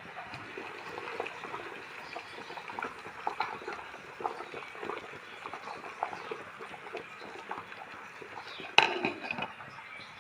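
Water boiling hard in a covered steel pan on a gas flame, bubbling with many small irregular pops. A single sharp clank rings out near the end.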